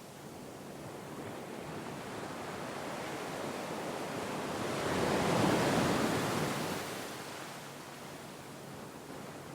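Sea waves washing ashore: a gentle swell of surf that builds, peaks about halfway through, then recedes.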